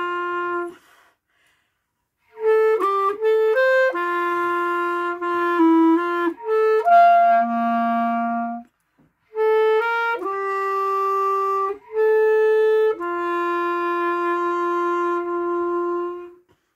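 Unaccompanied clarinet playing a slow melody: held notes broken by quick runs of shorter ones, with two short gaps, ending on a long held note that fades out near the end.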